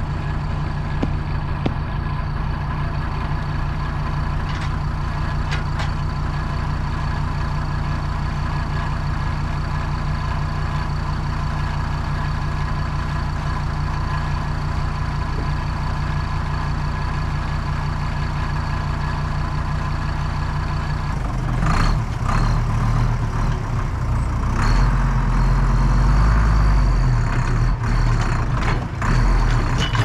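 Deutz DX tractor's air-cooled diesel engine idling steadily, then, about twenty seconds in, getting louder and heavier as it is revved and put to work, with several knocks and clanks.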